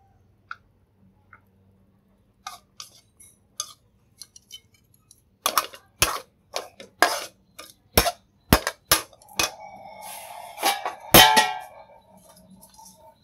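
Metal spatula scraping and knocking against a wok as food is scooped out of it: a few light ticks at first, then a quick run of sharp clinks and scrapes from about five seconds in.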